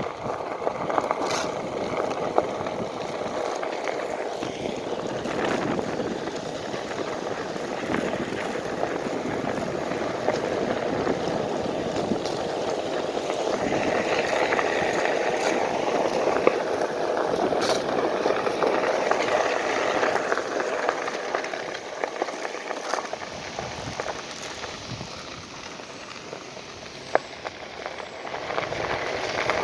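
Wind rushing over the microphone while a Onewheel rolls over a dirt trail, with scattered knocks from bumps; it grows quieter for a few seconds near the end.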